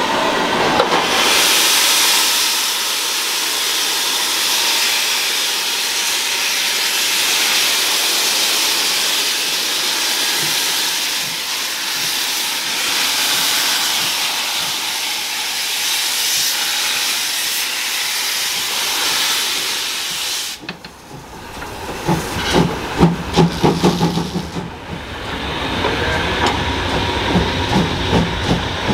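Steam locomotive giving off a steady, loud hiss of steam for about twenty seconds. The hiss cuts off suddenly, followed by a few seconds of rapid, sharp rhythmic beats and then the lower sound of the train rolling.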